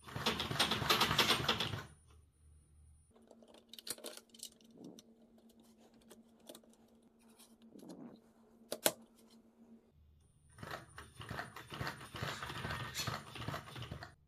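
Scattered clicks, taps and rattles of hands handling the plastic and metal parts of a 3D-printed RC car chassis, with stretches of rustling handling noise at the start and near the end. The engine is not running.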